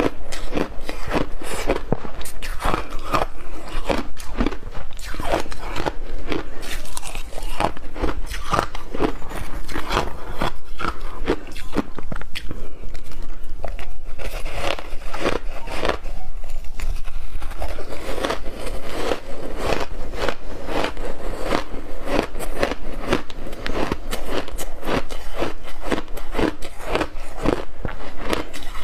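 Ice chunks coated in matcha and milk powder being bitten and chewed, close-miked: a steady run of hard, rapid crunching cracks, several a second, as the ice breaks between the teeth.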